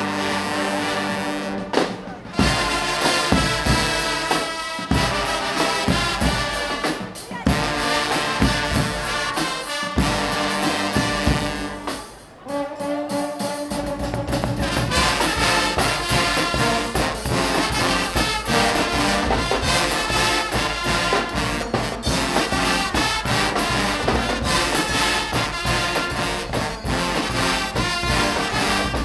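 A Guggenmusik band playing loud carnival brass, with trumpets and trombones over a steady drumbeat. The music thins out briefly about twelve seconds in, then comes back fuller.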